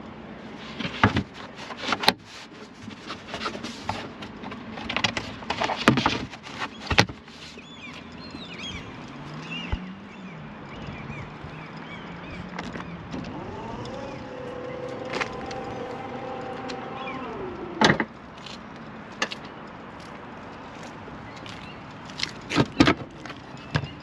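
Plastic clatter and knocks as the boot's load-floor panel is handled and set down. Then the electric motor of a Mercedes EQB's power tailgate whines steadily while closing the tailgate, ending in a sharp thump as it latches. A few clicks follow near the end.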